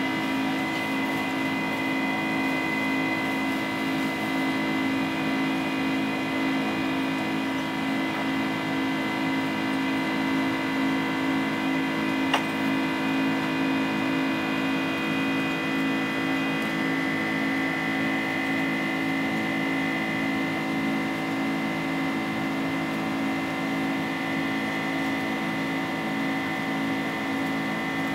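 Inside the cabin of a Boeing 767-300ER climbing out after take-off: its General Electric CF6-80C2 turbofan engines run at climb power with a steady drone and a high fan whine. One brief click sounds about twelve seconds in.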